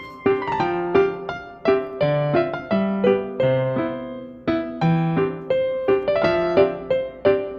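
Background piano music: a melody of struck notes at an even pace over lower bass notes.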